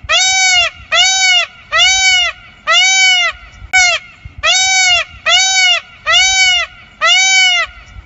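Indian peafowl (peacock) calling: a loud series of about nine short calls, a little under one a second, each rising then falling in pitch.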